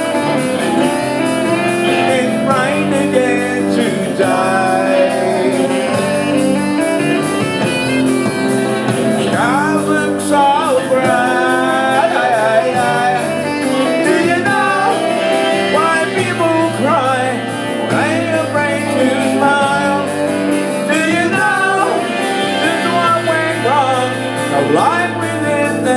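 Live rock band playing, with a singer over electric guitar and bass.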